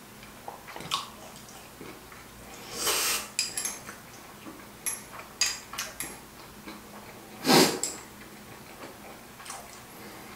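Close-miked eating sounds: wet chewing with sharp clicks of metal chopsticks against a small ceramic dish. Two louder, short wet mouth noises come about three seconds in and again about two-thirds of the way through.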